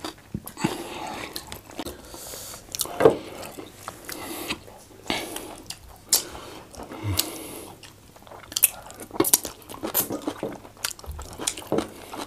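Close-miked eating sounds: chewing and biting with irregular short wet clicks and smacks, as goat meat and efo riro spinach stew are eaten by hand. The loudest smack comes about three seconds in.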